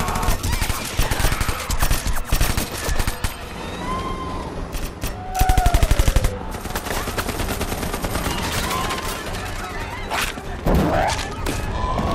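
Sustained automatic rifle fire, many shots overlapping in a fusillade. Near the middle comes one fast, even burst of about ten shots a second.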